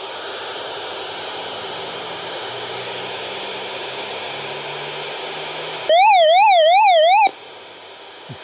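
RunningSnail emergency crank radio switched on, giving steady static hiss. About six seconds in, its alarm sounds for about a second and a half, a loud electronic siren warbling quickly up and down, then the static continues more quietly.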